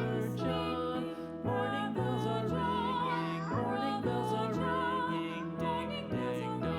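Slow, gentle background music: a melody over bass notes that change every half second to a second.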